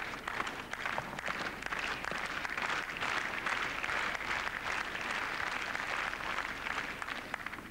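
Tennis crowd applauding after a point is won with a forehand: dense clapping that dies away near the end.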